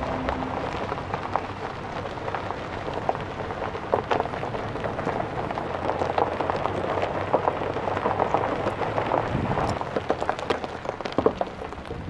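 Loose gravel crackling and crunching under slowly rolling wheels: a dense, irregular patter of small pops and clicks with no engine tone.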